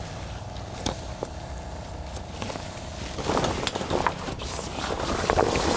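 Flatbed tarp rustling and crinkling as it is handled by hand, getting louder from about three seconds in, with a few sharp clicks earlier on, over a steady low hum.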